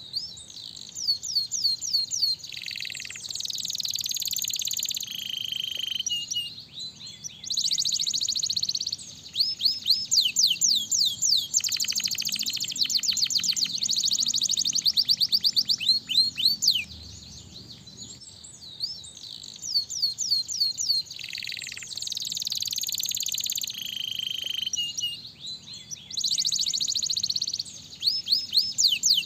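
Domestic canary singing: high, fast trills of rapidly repeated falling notes and dense buzzy rolls, in phrases of a few seconds separated by short pauses.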